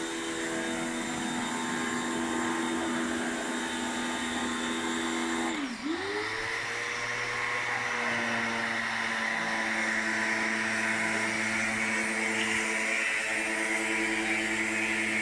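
An electric motor running steadily with a hum. About six seconds in, its pitch briefly drops and then climbs back.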